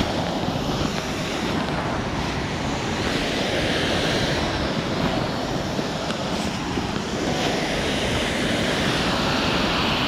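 Steady rush of water pouring over a weir into a rocky mountain stream, with wind buffeting the microphone in a low flutter.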